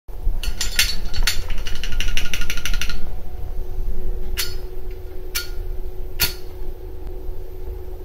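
A steady low rumble with a fast run of sharp clicks over its first three seconds, then three single sharp clicks about a second apart.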